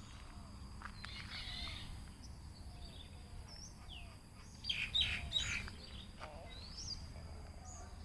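Birds chirping and calling, with short gliding notes scattered throughout and a louder cluster of calls about halfway through.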